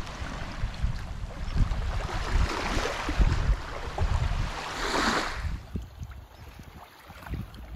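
Small waves washing up onto a sandy shore, the hiss of the water swelling to a peak about five seconds in and then dying away, with wind buffeting the microphone.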